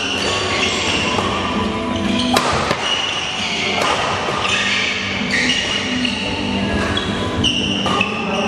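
A badminton rally: sharp cracks of rackets hitting the shuttlecock every second or two, with short high squeaks of shoes on the court floor in between.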